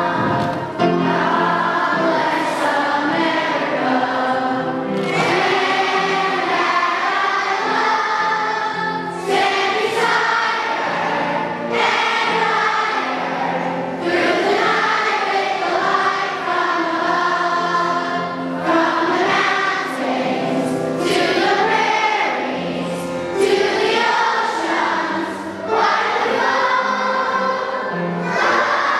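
A large group of young schoolchildren singing a song together, with an instrumental accompaniment holding low notes beneath the voices.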